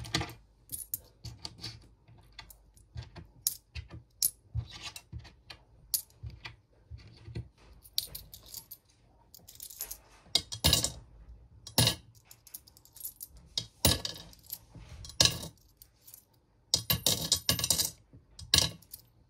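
Australian coins clinking against one another and the tabletop as they are picked up and shuffled in the hand. The sound comes as scattered sharp clinks, a few in quick little runs.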